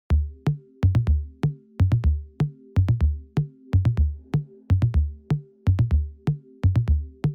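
Electronic background music: a drum-machine beat with a deep kick drum about twice a second over a held low note.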